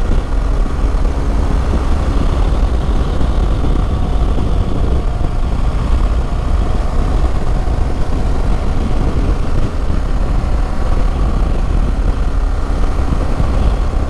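Steady wind rush and road noise at riding speed, picked up by a microphone on a motorcycle helmet's chin bar. Underneath it runs the 2016 BMW R 1200 GS Adventure's boxer twin at an even cruise.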